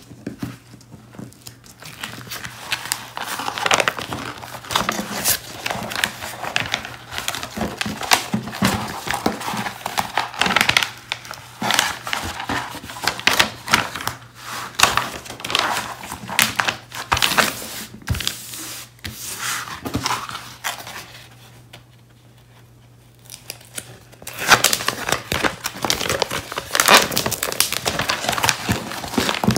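Plastic sleeve and paper cover sheet of a rolled diamond-painting canvas crinkling and rustling as it is handled and unrolled, in irregular bursts with a short lull about three quarters of the way through.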